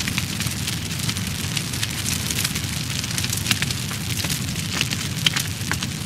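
Fire burning: a steady low rumble under many quick crackles and pops, with two louder pops about three and a half and five seconds in.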